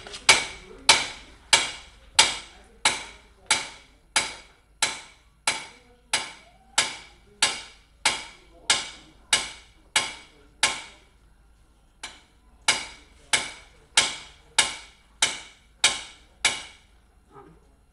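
Hammer blows on the top of a copper grounding rod being driven in, a steady series of about three strikes every two seconds, each with a bright metallic ring. The blows stop for about a second and a half around eleven seconds in, then resume for a second run of about seven strikes.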